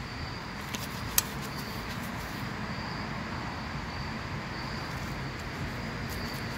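Steady low outdoor background rumble, with two short sharp clicks about a second in.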